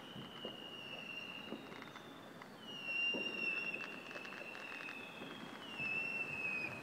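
Whistling firework rockets climbing, three long steady whistles one after another, each sinking slightly in pitch. Faint distant thuds and crackles from other fireworks sound underneath.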